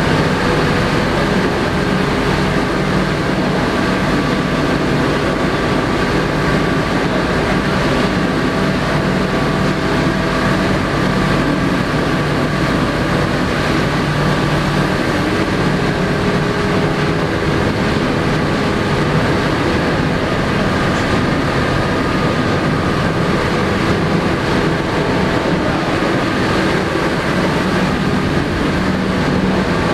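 Ship's engine-room machinery running: a loud, steady drone with several constant hum tones running through it.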